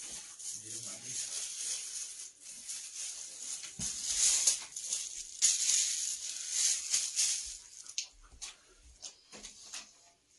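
Scratchy, rustling hiss on a snooker table recording, loudest in the middle, with a sharp click about eight seconds in from a snooker shot being played.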